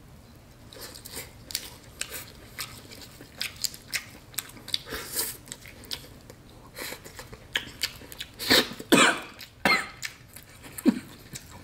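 Close-up eating of Cajun snow crab: scattered wet clicks of chewing and of meat being pulled from the shell, with a few louder slurps about eight to ten seconds in.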